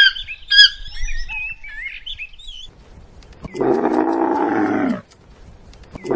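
Birds chirping with quick, wavy whistled notes for the first two and a half seconds. Then a camel's long, low call of about a second and a half, slightly falling in pitch, begins about halfway through; a second such call starts right at the end.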